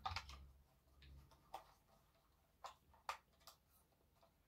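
Faint handling noise from unpacking drone accessories: about half a dozen short, scattered clicks and light knocks as hands work at a box and a carry bag. A low background hum stops about a second in.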